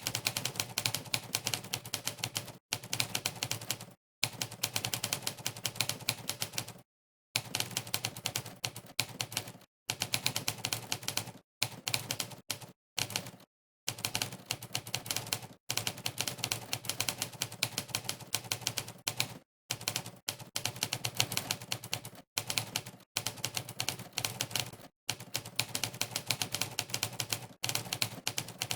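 Monkeytype's typewriter keypress sound effect: one sampled typewriter key clack for each key typed, in fast runs broken by short, dead-silent pauses between bursts of typing.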